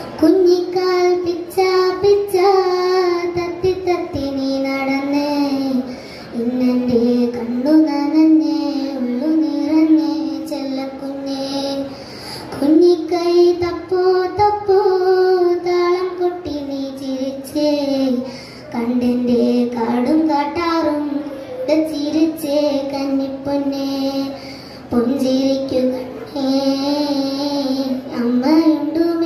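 A child singing a song solo, one melody line in phrases of a few seconds with short breaks between them.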